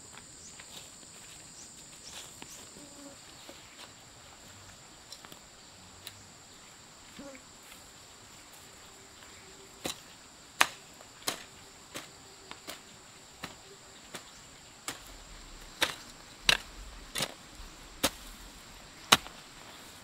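Hand hoes chopping into garden soil: faint strikes at first, then sharp strikes about once a second in the second half, over a steady high-pitched insect drone.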